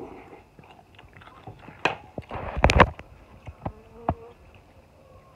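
Spoon clicking and scraping against a small plastic cup, with mouth sounds of eating and chewing. The loudest part is a noisy burst about two to three seconds in.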